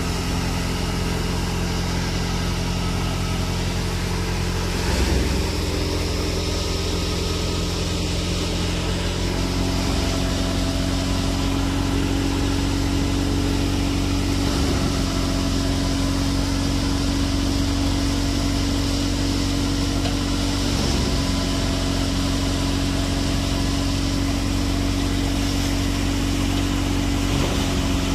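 Tractor-driven Dogar thresher running steadily under load: the Fiat 640 tractor's diesel engine and the spinning threshing drum make a continuous machine drone. About ten seconds in, a stronger steady hum joins it.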